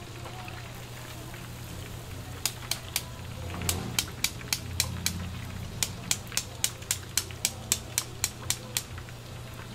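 Rapid sharp taps from a kitchen utensil at a food stall, about four a second in short runs, starting about two and a half seconds in and stopping near the end, over a steady low hum.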